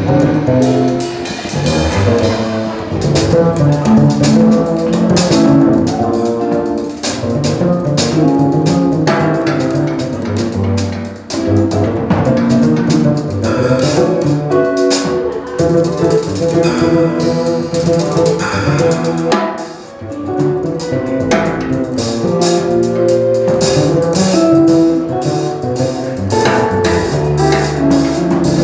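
Jazz trio of hollow-body electric guitar, upright bass and drum kit playing, with drum and cymbal strokes throughout.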